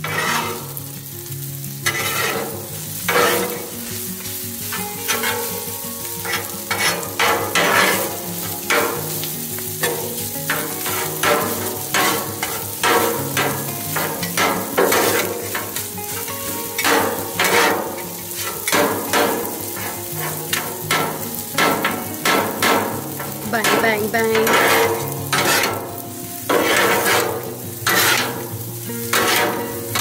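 Rice sizzling on a flat-top griddle while two metal griddle spatulas chop, scrape and toss it against the steel plate, in irregular strokes roughly once a second.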